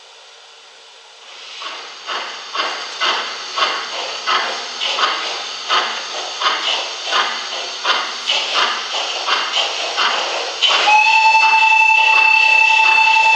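Gauge 1 model BR 94 steam tank locomotive's steam sound: regular exhaust chuffs starting about a second in, about two a second, then a loud steady steam whistle sounding near the end and held on.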